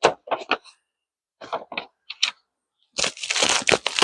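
Crinkly plastic packaging being handled: a series of short, sharp crackles, then a denser stretch of crackling near the end.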